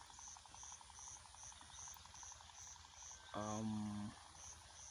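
Cricket chirping steadily, short high chirps about two or three a second. A little past the middle a man's voice gives a brief drawn-out sound, the loudest thing here.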